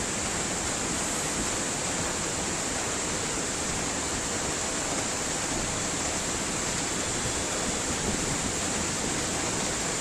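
Floodwater rushing fast down a street, a steady, even rush of water.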